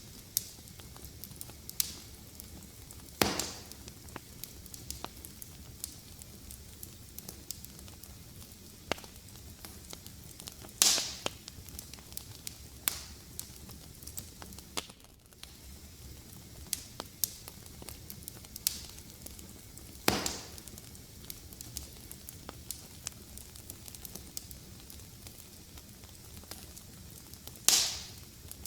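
Fireplace fire crackling steadily, with many small clicks and a loud sharp pop every several seconds over a soft low hiss.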